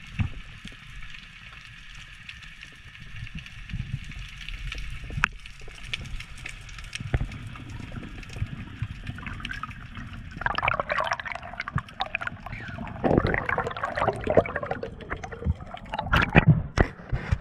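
Underwater water noise picked up by a submerged camera: low rushing of water with scattered clicks, then from about ten seconds in a louder, dense bubbling and gurgling.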